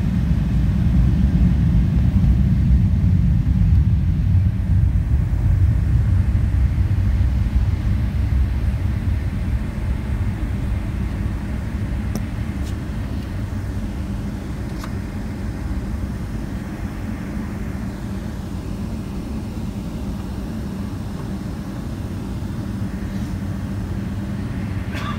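Cabin noise of a Boeing 777-300ER taxiing, heard inside the cabin by the wing: a steady low rumble from the aircraft and its GE90 engines at low taxi power, a little louder in the first few seconds.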